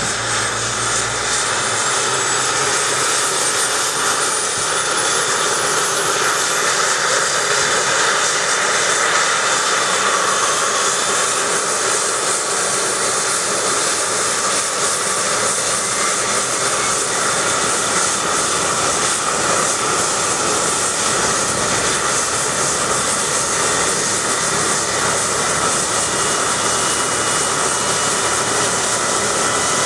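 BK 117 rescue helicopter running on the ground with its twin turboshaft engines and rotors turning. A high turbine whine rises steadily in pitch over the first nine seconds or so, over a loud steady rush, as the engines spool up. The sound then holds steady.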